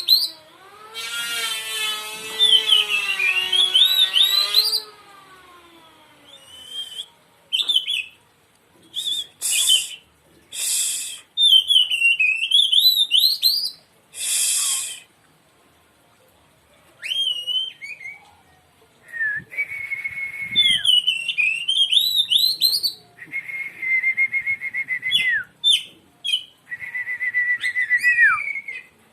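Oriental magpie-robin (kacer) singing in separate bursts of varied whistled phrases that swoop up and down, broken by short harsh rasping notes. The first few seconds hold a lower wavering note rich in overtones, and towards the end come long held whistles that drop off sharply.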